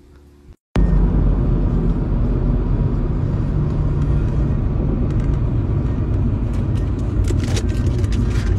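Steady low road-and-engine rumble inside a moving car's cabin, starting about a second in, with a few faint clicks near the end.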